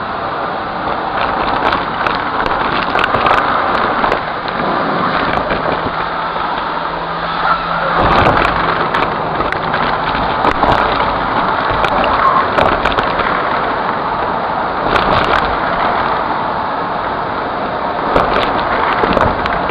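Vacuum cleaner running steadily while its wand sucks up a pile of glitter, foil confetti, sequins and plastic beads from a hardwood floor, with a constant crackle of small clicks as the debris rattles up the tube. The crackle swells briefly a few times.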